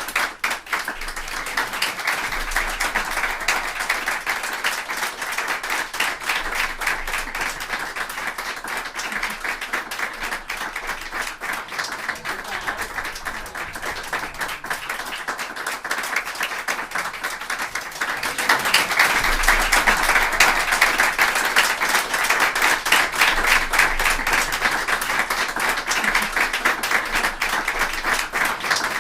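A group of people applauding, many hands clapping at once in a dense, steady patter that grows louder about two-thirds of the way through.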